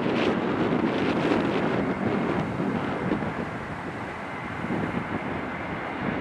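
Airbus A320 on final approach with gear down: a jet engine rumble mixed with wind buffeting the microphone, the gusts easing in the second half. A faint, steady high whine comes in about two seconds in.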